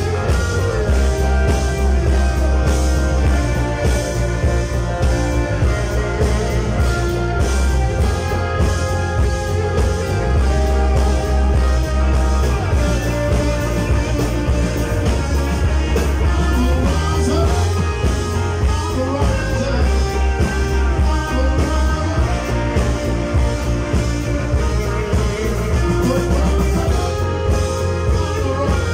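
Live electric blues-rock band playing loudly: electric guitars over bass guitar and a drum kit, with a lead line of bending notes riding over a steady heavy low end.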